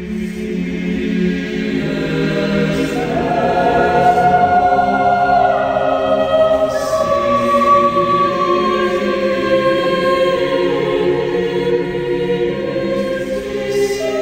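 Choral music: a choir holding long, slowly changing chords that grow louder over the first few seconds.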